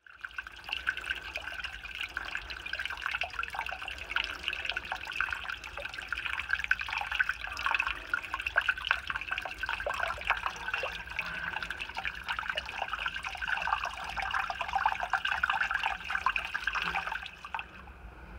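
Water spraying and splashing out of a leak in a concrete tank wall around an outlet valve: a dense, crackling, splashy rush that cuts off about a second before the end.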